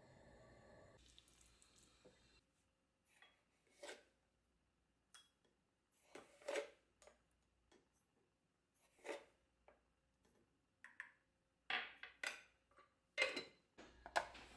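Quiet kitchen handling sounds during food preparation: scattered short taps, scrapes and rubs, a few seconds apart at first and closer together near the end.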